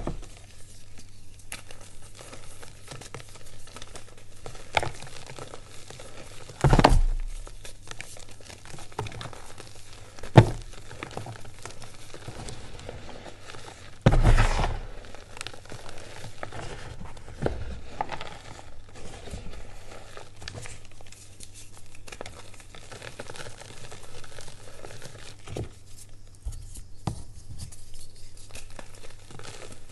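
Reformed gym chalk crunching and crumbling as hands squeeze, break and rub it, with dry powder sifting through the fingers. The crackling runs on, with louder crunches about seven and fourteen seconds in and a sharp snap about ten seconds in.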